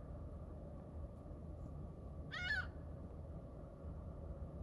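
A bird gives a single short call about halfway through: one brief note with several stacked overtones that rises and then falls in pitch. A steady low rumble runs beneath it.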